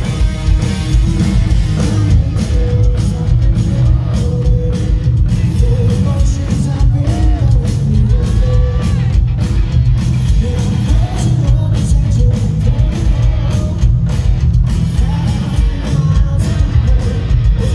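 Live rock band playing loudly: electric guitars, bass guitar and a drum kit, with a sung lead vocal and a heavy low end.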